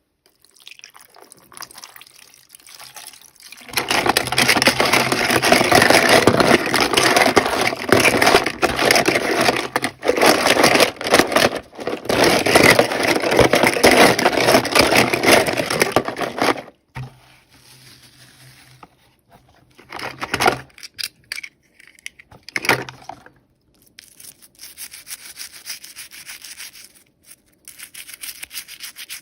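Hands handling and rubbing toy packaging as it is unboxed: a dense, scratchy rubbing noise for about thirteen seconds, then quieter, intermittent handling noises with a few short louder scrapes.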